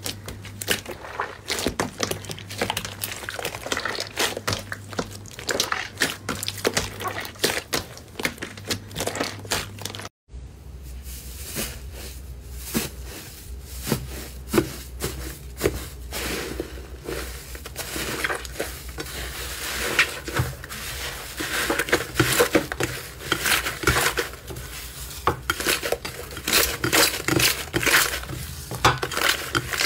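Hands squishing and pressing a glossy slime, a dense run of sticky crackles and small pops. After a sudden cut about ten seconds in, crumbly slime is kneaded and torn in a glass bowl, with crisper, denser crackling that grows louder towards the end.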